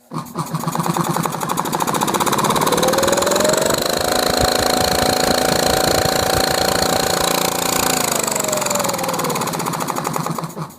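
Air compressor driven directly by a Motenergy ME1117 electric motor at 24 V starts up under throttle and runs with a fast pumping beat and a rising whine as it speeds up. It holds a steady speed for a few seconds, then slows with a falling whine and stops near the end.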